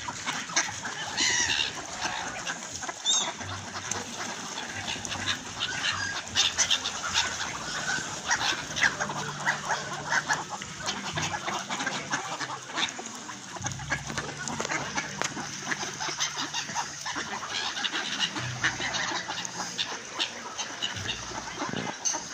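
A flock of mallards quacking and chattering all together as they crowd in to be fed, with a few higher gull calls in the first few seconds.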